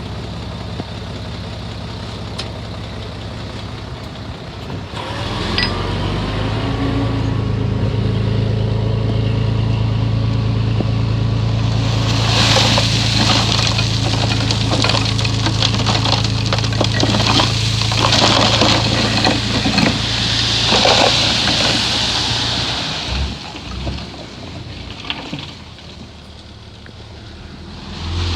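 Heavy diesel engine running, then revving up about five seconds in and holding high under load. From midway a loud rattling, rushing noise joins it for about ten seconds. Near the end the engine drops back.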